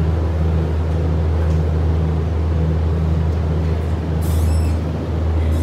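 Steady low engine drone of a vehicle, with a brief high squeak about four seconds in.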